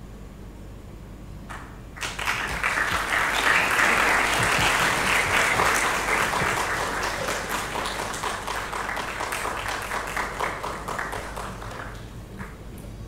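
Audience applauding: the clapping starts suddenly about two seconds in, is loudest for a few seconds, then slowly dies away near the end.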